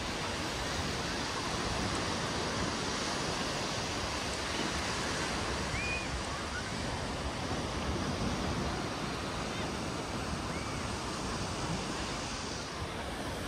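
Ocean surf washing onto a beach, a steady rush with no breaks. A few faint short high chirps rise over it in the middle.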